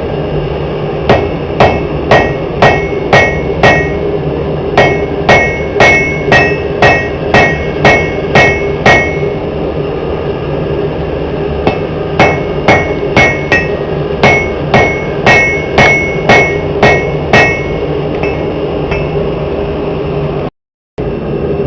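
Hand hammer striking hot steel on an anvil while forging a tomahawk head, at about two blows a second in runs of several strikes with short pauses between. Each blow rings brightly off the anvil, over a steady roar.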